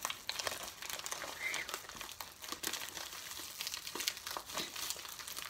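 Crinkling and crackling of a sealed package's wrapping as it is handled and pulled at in an effort to tear it open, in irregular bursts of small crackles.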